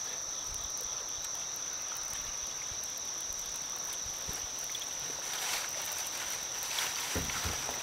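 Insects droning in the riverside woods: one steady, unbroken high-pitched buzz.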